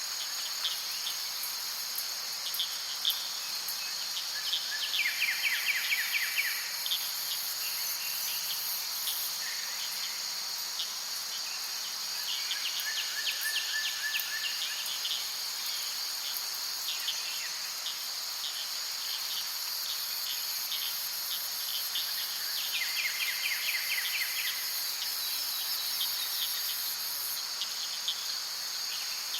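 Forest insect chorus: a steady high-pitched drone that runs unbroken, with a rapid pulsing trill breaking in three times, about five, twelve and twenty-two seconds in.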